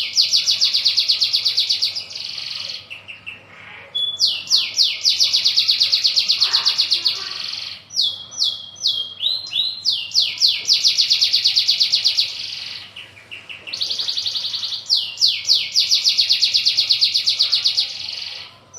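Brown local Indonesian canary singing its long 'ngerol' roll: high, very rapid trills lasting a few seconds each, each opened by a few downward-sliding notes. Four such rolls come in turn, with short pauses between them.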